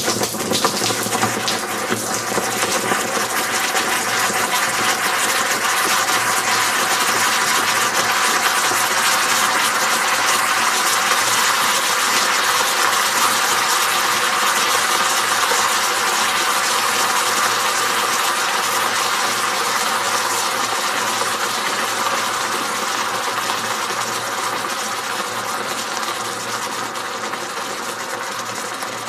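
Red-hot metal ball sizzling in honey: a loud, steady hiss that starts suddenly and slowly fades as the ball cools.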